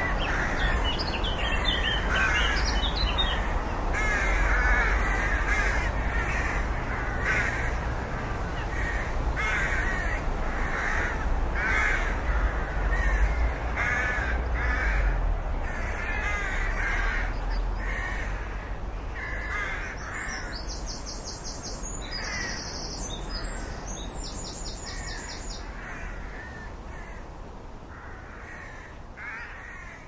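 Rook cawing over and over, about one call a second, with a low rumble beneath for the first half; the calls grow fainter through the second half.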